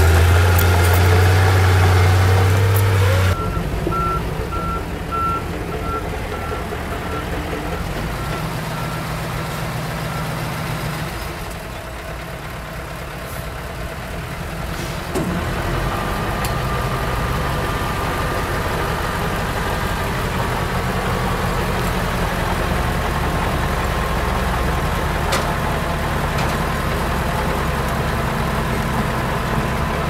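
Heavy diesel engine of a Komatsu D31 bulldozer running, loud and deep for the first few seconds, then dropping back. A reversing alarm beeps at a steady pace for several seconds. The engine settles to a steady run again in the second half.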